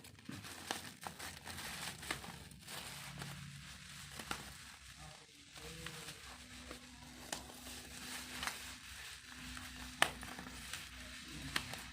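Plastic packaging crinkling and rustling as a boxed phone is handled, with scattered sharp clicks and taps and one louder tap about ten seconds in.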